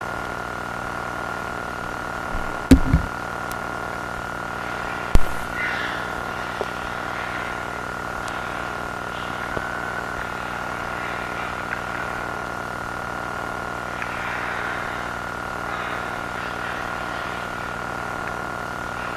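Steady, ominous electronic drone of an analog-horror soundtrack: a constant high tone over layered low hum and tape-like hiss. Two dull thumps stand out, one under three seconds in and one about five seconds in.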